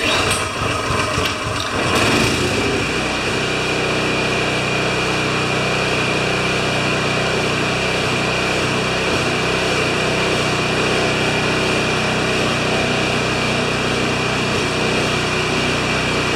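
Toro Power Clear 621 QZR snow thrower's small single-cylinder engine starting: it catches unevenly over the first couple of seconds, then runs steadily at speed.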